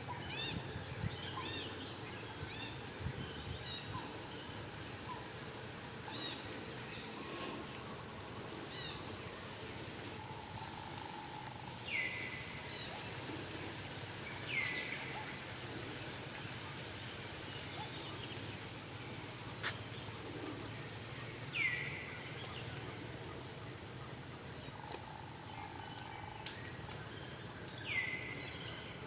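Steady, high insect chorus of crickets or cicadas. Four times, a short call sweeps down in pitch above it.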